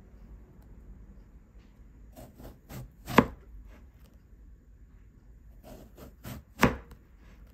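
Chef's knife slicing an eggplant into rounds on a plastic cutting board: two slices, each a few soft cutting sounds ending in a sharp knock of the blade on the board, the first about three seconds in and the second near the end.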